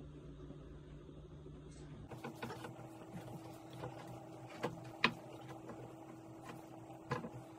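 Light handling noises at a wooden cutting board: a few short knocks and taps, the loudest about five seconds in. Under them is a steady hum that changes pitch about two seconds in.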